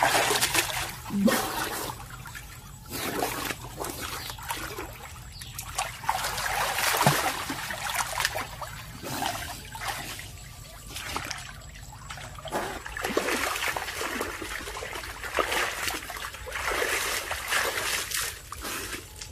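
Water splashing and trickling in irregular surges.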